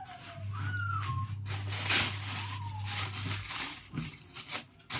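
A domestic cat meowing about three times in short, falling calls. Loud rustling or handling noise comes about two seconds in.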